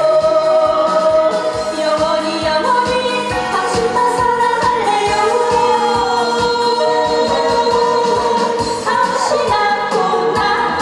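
A woman singing a Korean trot song over a backing track with a steady drum beat, holding long notes that slide between pitches.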